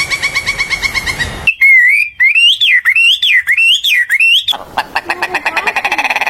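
Bird calls in three abruptly joined parts: a quick run of repeated notes, then a clear whistle sliding up and down about five times, then a fast rattling trill.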